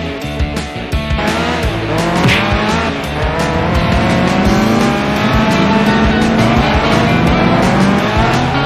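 Race car engine sound effects revving, their pitch rising repeatedly and then holding, with a brief tyre squeal about two seconds in, over rock music.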